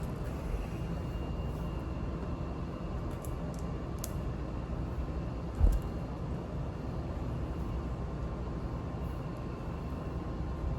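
Steady low background rumble with a faint hum, a few faint clicks, and one dull thump about five and a half seconds in.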